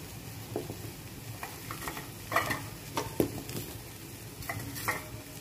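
Drumstick pieces dropped into a simmering tamarind gravy in an aluminium kadai: a handful of sharp splashes and clinks against the pan, the loudest about two and a half and three seconds in, over the low steady simmer of the gravy.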